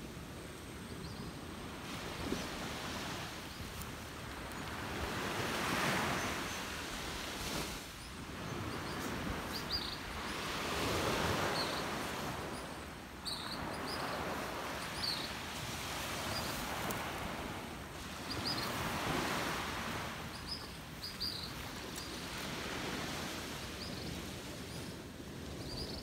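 Sea surf washing onto a sandy beach, swelling and fading about every four to five seconds, with a bird's short high chirps now and then.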